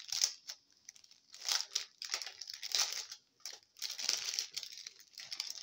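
Small clear plastic bags of diamond-painting rhinestones crinkling as they are handled, in irregular bursts.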